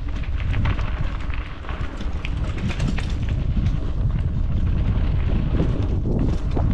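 Wind buffeting a helmet- or bike-mounted action camera's microphone as a mountain bike runs down a dirt trail, a heavy low rumble with scattered knocks and rattles from the trail.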